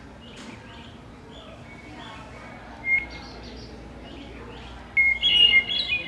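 Played-back recording of a hermit thrush singing. A short clear whistled note comes about three seconds in, then near the end a louder phrase: a held opening note followed by several higher notes.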